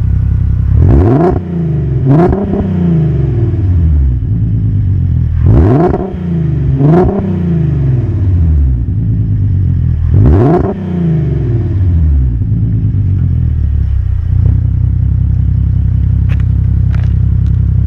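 Volkswagen Passat CC's VR6 engine, heard at the tailpipe of a sports exhaust with Barenwald mufflers, free-revved in five quick blips (two, two, then one), each falling back to idle. It then idles steadily for the last several seconds.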